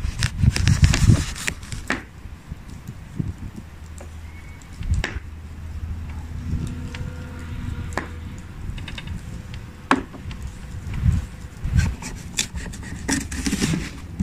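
A large knife cutting around the top of a whole pumpkin to take out its lid: the blade scrapes and creaks through the rind, with scattered sharp clicks.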